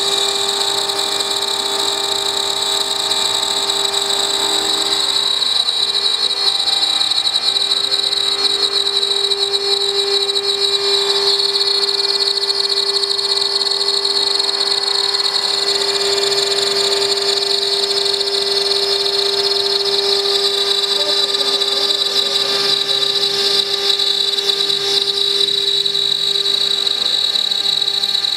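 CNC milling machine spindle running at high speed while its cutter wet-mills a stone slab under a water coolant jet. It gives a loud, steady high whine with a lower hum beneath it, unchanging throughout.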